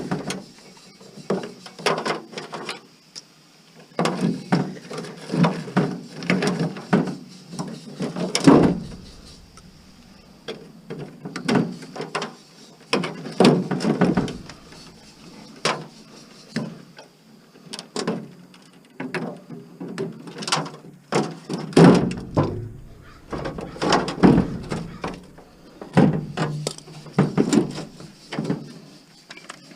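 A scrap appliance being taken apart by hand: irregular knocks, clunks and rattles of metal parts and wiring being pulled and handled.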